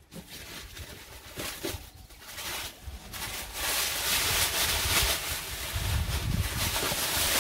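Plastic wrapping rustling and crinkling as a new rolled windbreak is unwrapped by hand, with a few soft handling knocks at first, then louder and steadier rustling from about three seconds in.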